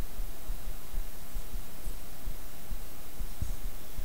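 A steady low hum with soft, irregular low thumps throughout.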